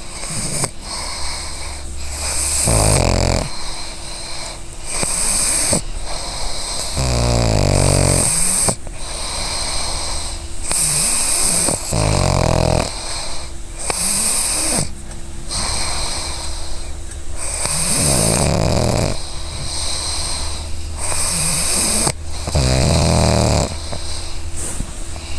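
A sleeping pug snoring: a low, pulsing snore on a breath about every five seconds, with high wheezy hissing on the breaths in between.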